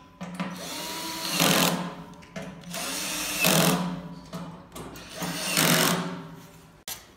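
Cordless drill-driver backing screws out of a sheet-metal heater cover panel: three runs of the motor, each building up to a loud peak before easing off.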